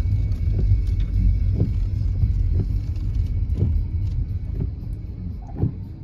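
Low rumble of a car heard from inside the cabin as it drives slowly, easing off near the end as the car slows to park, with faint ticks about once a second.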